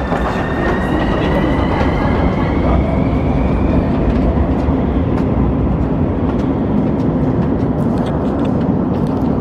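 Metro train whining up in pitch as it pulls away over the first few seconds, under a loud steady rumble that carries through the station, with scattered footsteps on stone stairs.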